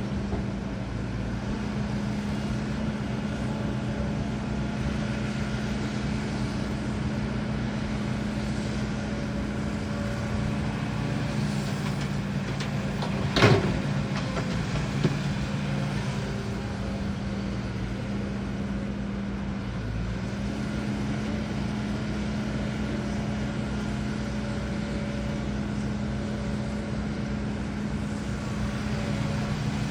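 Heavy diesel engine of a HIDROMEK HMK230LC excavator running with a steady hum while working. About halfway through comes one sharp, loud bang, then a smaller one a second and a half later.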